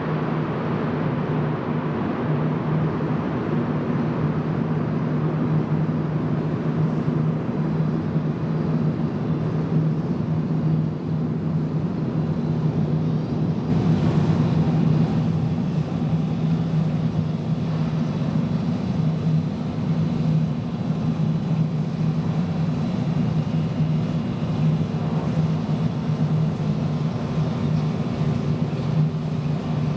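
Steady low hum of an underground metro station's ambience, a constant drone with a faint wash of noise over it, swelling slightly for a couple of seconds about halfway through.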